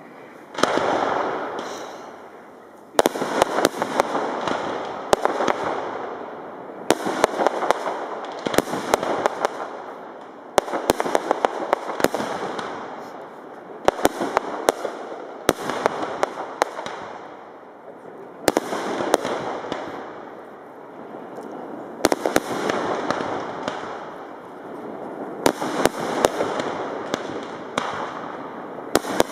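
Aerial fireworks display: shells bursting with sharp bangs every one to two seconds, often several in quick succession, each followed by a crackling hiss that fades over a second or two.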